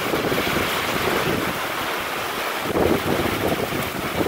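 Heavy thunderstorm rain pouring down, with wind gusting over the microphone; a stronger gust swells up about three seconds in.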